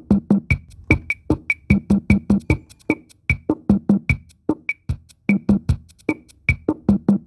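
Percussion music: a fast, even pattern of sharp drum and wood-block-like strikes, several a second, with no melody or voice.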